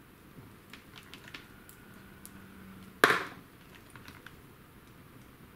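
Small clicks and taps of multimeter test probes and parts of a dismantled vacuum-cleaner motor being handled on a wooden workbench, with one sharp knock about three seconds in.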